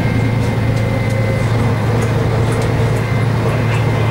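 Inside a 1988 MAN SL202 bus underway: the diesel engine's steady low drone fills the cabin, with a thin high whine and occasional light rattles.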